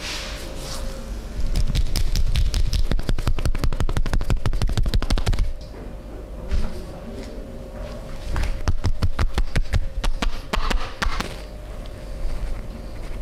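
Rapid percussive massage strokes, hands slapping quickly on the body at roughly eight to ten strikes a second. There are two runs: a long one of about four seconds and a shorter one later, with softer rubbing of hands on skin between them.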